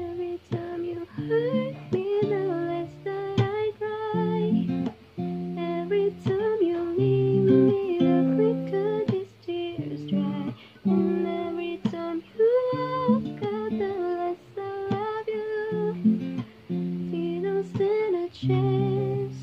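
A song with acoustic guitar and a singing voice, the melody moving in held, gliding notes.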